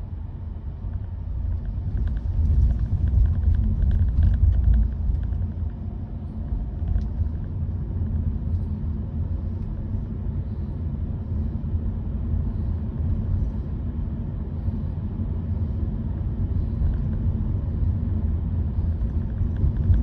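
Road and tyre rumble inside the cabin of a moving Honda Vezel e:HEV hybrid: a steady low drone that swells louder about two to five seconds in.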